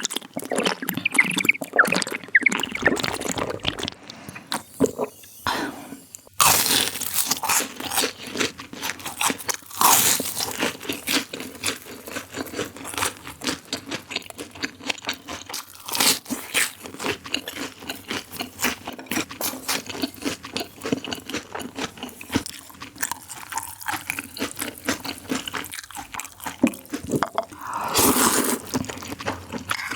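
Crunchy food being chewed close to the microphone: dense, irregular crunching with a brief lull a few seconds in.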